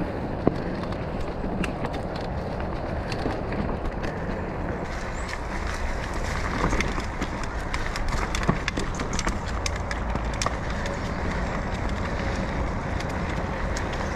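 Mountain bike ridden along a dirt singletrack trail: steady rolling noise with frequent sharp clicks and rattles from the bike over the rough ground.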